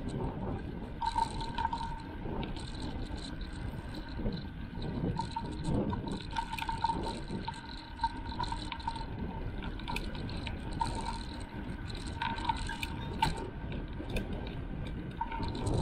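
Wind buffeting a bicycle-mounted action camera's microphone while riding at about 20–25 km/h, with a steady low rumble of tyre and road noise.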